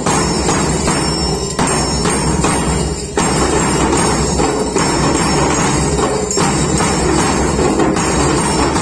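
A small school percussion band playing together: a bass drum, small hand cymbals, a triangle and a small hand drum struck in a continuous rhythm.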